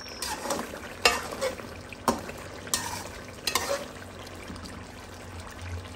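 A metal spoon scraping and knocking against a metal karahi as chicken karahi is stirred and fried down, about five strokes in the first four seconds. A steady sizzle of the frying sauce runs underneath.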